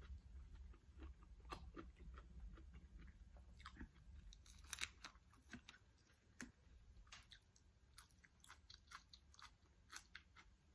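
Faint chewing and crunching of food in the mouth: a string of small wet clicks and crisp crunches at an uneven pace, with one louder crunch just under five seconds in.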